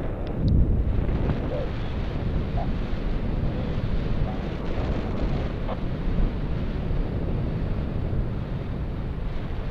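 Airflow buffeting the microphone of a camera flying under a paraglider: a steady, low wind rumble.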